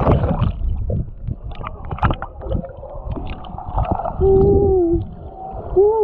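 A swimmer hums long hooting notes underwater to attract dusky dolphins: two held notes near the end, each sliding down as it ends. Splashing and bubbling water at the start, then scattered gurgles.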